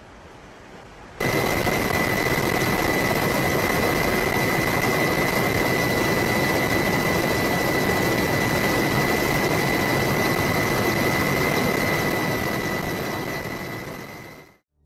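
Turbine engine running steadily: a loud roar with a high, steady whine. It cuts in sharply about a second in and fades out near the end.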